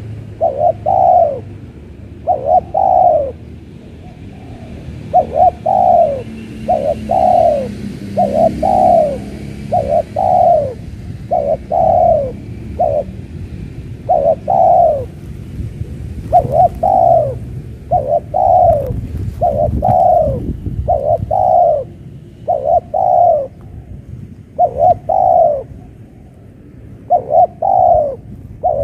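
Spotted dove cooing over and over: a long series of short, slightly falling coo notes in phrases of two to four, with brief pauses between phrases.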